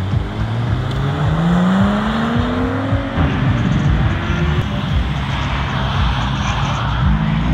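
Sports car engines accelerating away: one engine note climbs steadily for about the first three seconds, then gives way to a rougher, noisier run of engine sound as another car pulls off.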